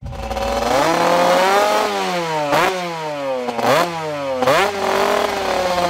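1980 Gilera 125 B twin-cylinder two-stroke motocross engine revved on the stationary bike. The pitch climbs slowly about a second in, then three quick throttle blips follow, each rising sharply and falling back toward idle.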